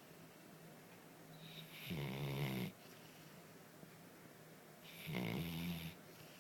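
Snoring in a slow, even rhythm: two loud, rattling snores, about 2 and 5 seconds in, each lasting just under a second, with quiet breathing between them.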